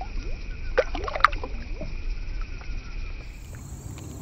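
Water splashing twice in quick succession as a small bass is released by hand into shallow water.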